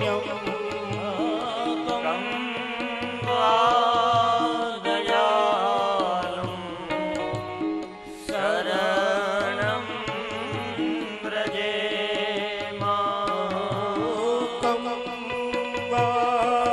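Men singing a devotional chant to harmonium accompaniment, with a drum keeping a steady beat underneath.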